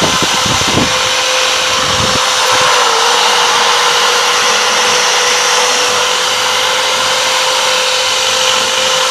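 Handheld electric drill running steadily with a grinding bit in the port of a finned motorcycle cylinder: a steady motor whine over the rasp of the bit on the metal. There are a few low thumps in the first two seconds.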